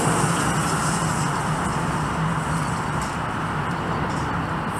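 Steady outdoor traffic noise with a constant low hum, even throughout.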